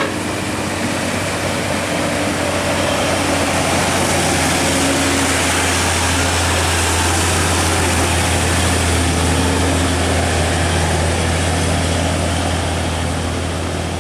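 Heavy diesel dump truck engine labouring uphill: a deep, steady drone that grows louder through the middle and fades near the end.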